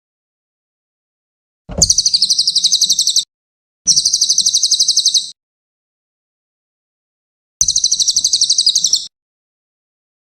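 Brown cililin songbird singing three short trills of rapid repeated high chirps, each about a second and a half long, with silent gaps between them.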